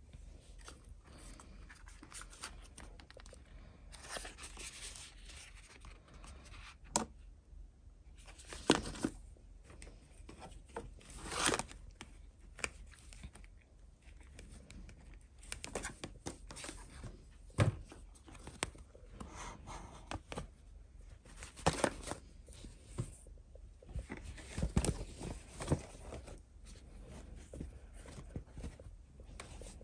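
Close handling noise as items are picked up and moved about in a plastic mesh basket: bouts of rustling and crinkling with scattered clicks and knocks, over a steady low hum.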